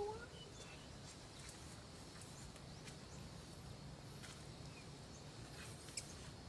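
Quiet outdoor ambience with a low steady background hum. A low bird call ends right at the start, and faint scattered bird chirps and a few soft clicks follow.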